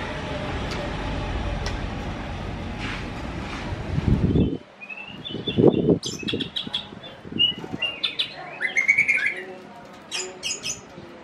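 White-rumped shama singing in a wire cage: a run of short whistled notes, gliding chirps and sharp clicks from about halfway through, with a few dull thuds around the middle. Before that a steady rushing noise runs and stops abruptly a little over four seconds in.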